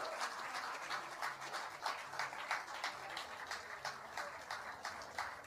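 Audience applauding, many hands clapping at once, gradually dying down.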